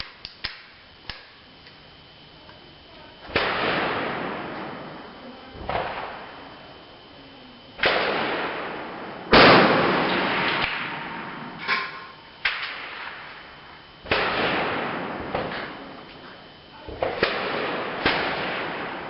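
Rifle shots on a shooting range, about nine in all at uneven gaps, each trailing off in a long echo. The loudest comes about nine seconds in.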